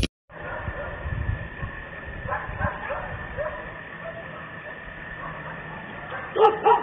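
Dogs barking in the distance, on and off, with a louder cluster of barks near the end, in a thin, tinny microphone recording with a steady high-pitched tone underneath.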